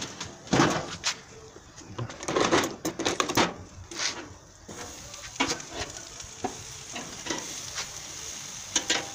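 Chicken sizzling on a barbecue grill: a steady high spitting hiss from fat dripping into the flames, which builds toward the end. In the first half there are several sharp knocks and clanks of metal as the grill is handled.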